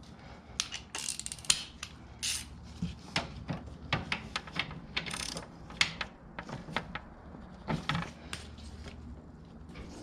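Ratchet wrench with a 17 mm socket clicking in quick, irregular runs of strokes as the oil drain plug is threaded back in and tightened.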